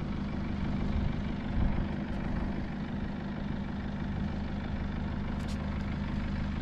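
Vehicle engine idling steadily.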